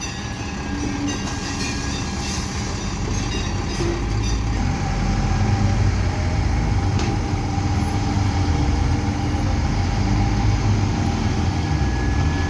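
Heavy diesel construction machinery running steadily: a deep engine rumble that grows a little louder about five seconds in.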